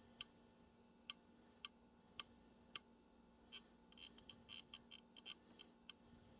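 Small sharp metal clicks of pliers working against parts of a Rochester Quadrajet carburetor as a stuck clip is wiggled loose. A few single clicks come about half a second apart, then a quicker run of clicks in the second half.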